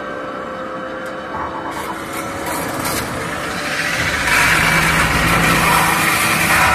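CNC pot-spinning machine running, a metal-spinning lathe: a lower, quieter machine noise at first, then a louder steady motor hum with a higher whine from about four seconds in.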